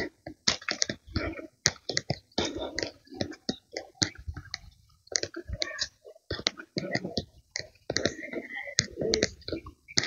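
Footsteps crunching and scuffing on a dirt footpath strewn with cut leaves and stalks, heard as irregular crackles and soft thuds, with rustling in between.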